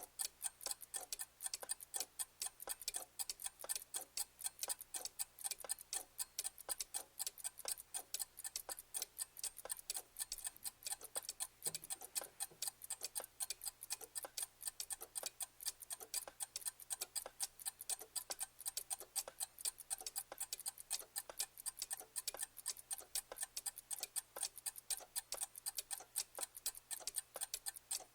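Clock ticking: an even, unbroken run of sharp, rapid ticks.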